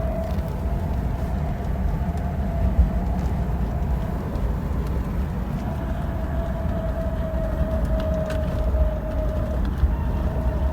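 BMW 635CSi (E24) driving, with a low road and drivetrain rumble and a high whine from a worn drive shaft center support bearing. The whine comes and goes with road speed rather than engine revs. It fades out just after the start, returns strongly about six seconds in while sinking slightly in pitch, breaks off briefly and comes back near the end.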